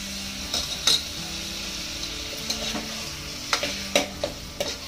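Keema (minced meat) with onion, tomato and spices sizzling as it fries in an aluminium pressure cooker, stirred with a steel spoon that scrapes and clinks against the pot's sides several times, most sharply about a second in and around four seconds in. This is the dry frying (bhuna) stage of the masala and meat, before water goes in.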